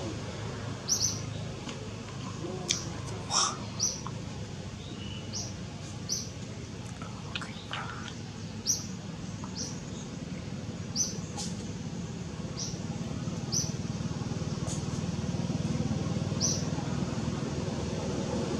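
A bird calling with short, high chirps, one every second or two, over a steady low outdoor hum. A few thin, rising squeaks come in around the middle.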